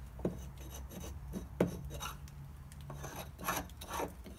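Hand paint scraper rasping old paint off a wooden window sash in a run of short, uneven strokes.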